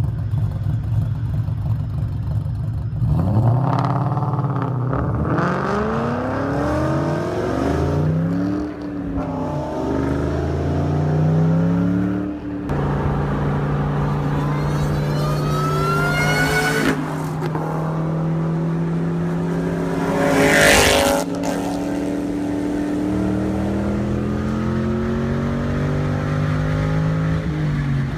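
Ford Mustang V8 engines, Cobras and 5.0s, revving up and down several times in quick blips, then running at a steadier note. Partway through, one car accelerates with a rising pitch, and a loud rushing burst follows a few seconds later, as of a car passing close.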